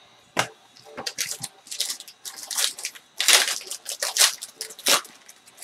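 Shiny foil wrapper of a 2016 Panini Limited football card pack being torn open by hand. It makes a series of sharp crinkling rips, busiest about three to four seconds in and stopping near the end.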